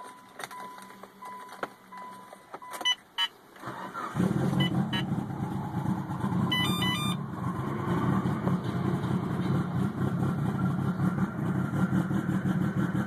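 A pulsing warning chime and a few clicks as the ignition is turned. Then, about four seconds in, the 2005 Mitsubishi Lancer Evolution's turbocharged four-cylinder, running on E85 through a 4-inch straight-pipe exhaust, fires on a cold start and settles into a loud, steady cold idle, heard from inside the cabin.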